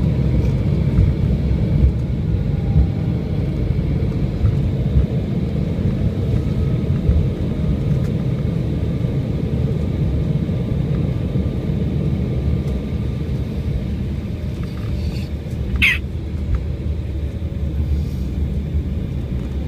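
Steady low rumble of an airliner's engines and wheels heard inside the cabin as the plane rolls along the runway after landing. Near the end a brief high-pitched squeak is heard.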